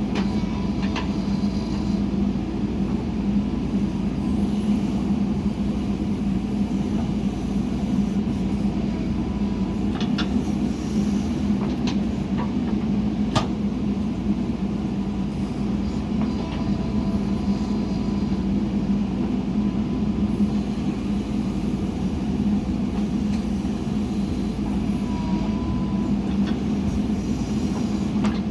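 Diesel engine of a JCB 3DX backhoe loader running steadily under work, with a few sharp metallic clicks about ten to fourteen seconds in.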